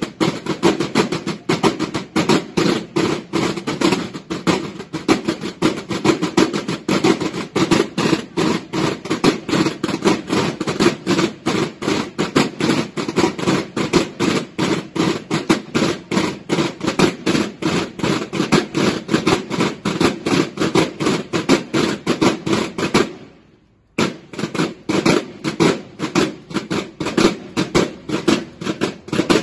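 Snare drums of a banda de guerra playing a fast, steady cadence together. They stop sharply about 23 seconds in and start again a second later.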